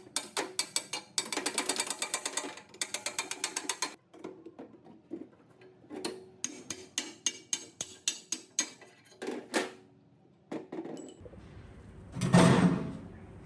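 Rapid mechanical clicking in two runs of a few seconds each, with a few scattered clicks after. A brief rush of noise swells and fades near the end.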